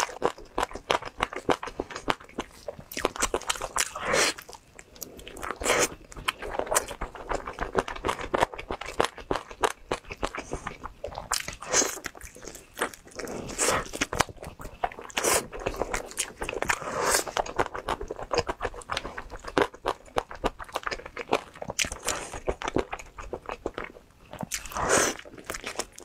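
Close-miked eating of glazed cola chicken wings: biting and chewing the meat, a dense run of irregular small clicks with louder bites every second or two.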